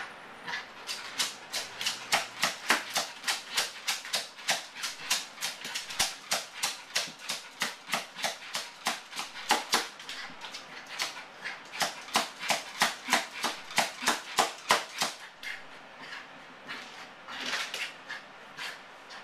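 Yorkshire terrier yapping in a fast run of short, sharp barks, about three a second, then a brief lull and a few more barks near the end: the frantic barking of a small dog with separation anxiety, left alone at the door.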